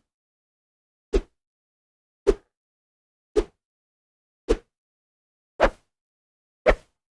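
Six short, quick whooshes, evenly spaced about a second apart, with silence between them.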